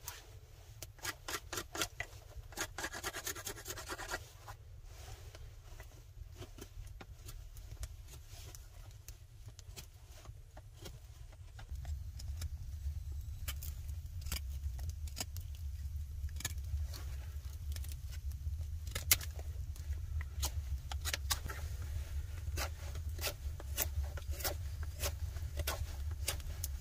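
A knife blade scraping and shaving thin curls off a dry stick to make a feather stick, in repeated short strokes, with a wood fire crackling in sharp clicks. A low steady rumble underlies it and grows louder about twelve seconds in.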